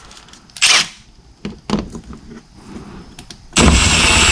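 Cordless impact gun driving a fastener: a brief burst about a second in, then a longer run of about a second near the end, with a thin high whine over the hammering. A few light clicks of handling come in between.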